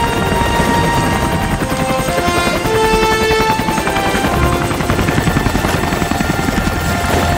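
Helicopter rotor chopping steadily, with a simple melody of short held notes playing over it.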